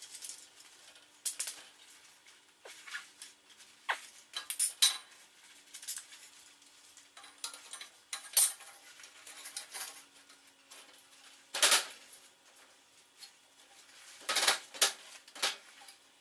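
Steel parts and hand tools clinking and knocking as they are handled and fitted on a workbench, in irregular single knocks with a louder cluster of clanks near the end.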